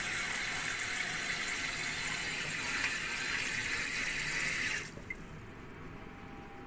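Kitchen tap water running through a faucet-mounted filter attachment and splashing into a plastic filter container, a steady hiss that cuts off suddenly about five seconds in as the tap is turned off.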